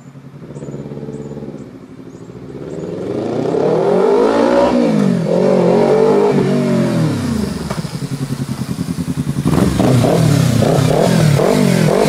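Kawasaki Ninja 300's parallel-twin engine through an M4 aftermarket exhaust. After a short throttle blip the bike pulls away and runs past, the engine note climbing and dropping twice, then from about three-quarters of the way in come a run of quick throttle blips with the bike standing still.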